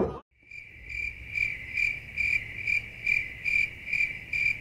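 Crickets chirping as a sound effect: one steady high trill that swells about two to three times a second and starts about half a second in. It is the stock gag for an awkward silence, here meaning that no answer comes.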